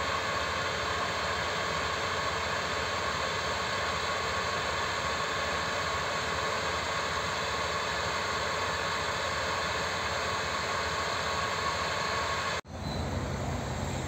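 Forestry fire truck's engine running steadily at a constant speed, a flat hum with hiss and a few steady tones. It cuts off abruptly near the end.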